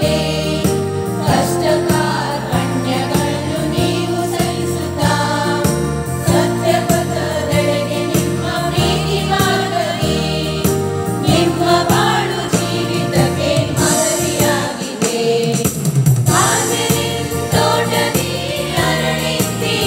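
A Kannada devotional song: voices singing over an instrumental backing with a steady beat. The bass drops out briefly about fifteen seconds in.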